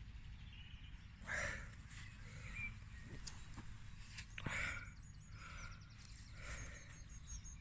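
Faint outdoor ambience: small birds chirping now and then, with a few soft rustles and a couple of light clicks.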